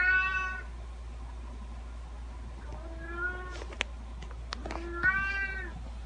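A domestic cat meowing three times, each meow short and under a second long, spaced about two to three seconds apart. A few sharp clicks fall between the second and third meows.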